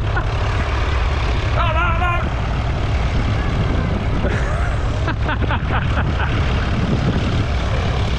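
Tractor engines working under load as they pull ploughs, a steady low drone.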